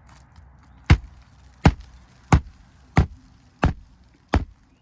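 Hammer striking a roof shingle six times at a steady pace, about one blow every two-thirds of a second, likely driving a roofing nail.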